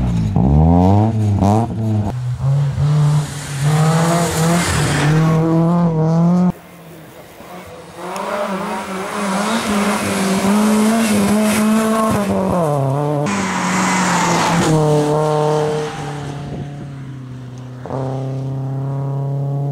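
BMW E36 rally car engine revving hard at speed, the pitch climbing and dropping again and again through gear changes and lifts, with a hiss of tyres and loose gravel. The sound jumps abruptly several times where different passes are cut together.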